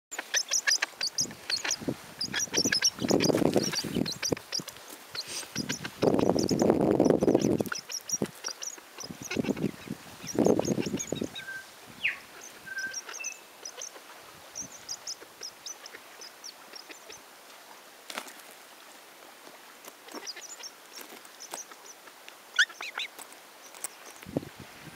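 A weka rummaging at a nylon backpack: quick pecks and taps of its beak on the straps and buckles, with three longer bursts of rustling fabric in the first half as it tugs at the bag. A few short, thin chirps come in the quieter second half.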